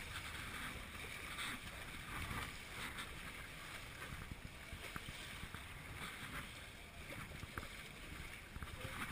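Water rushing and slapping against the wooden hull of a GP14 sailing dinghy under way upwind in chop, with irregular short splashes over a steady wash. Wind rumbles on the microphone underneath.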